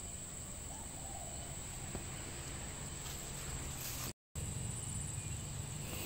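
Steady high-pitched chirring of crickets or other insects in a rice paddy, with a short break a little after four seconds where the sound cuts out completely.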